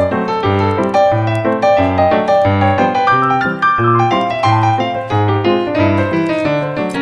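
Background music on piano or electric piano: a steady run of notes over a bass line.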